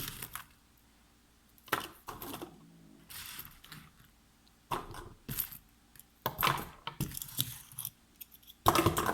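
Small fidget toys clattering and rattling as they are gathered up and put away, in irregular bursts of clicks and knocks with short pauses between them.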